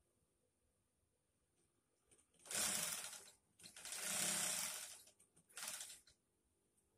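Industrial sewing machine, driven by its motor under the table, stitching in three short bursts as the treadle is pressed and released. The first starts about two and a half seconds in, and the middle run is the longest.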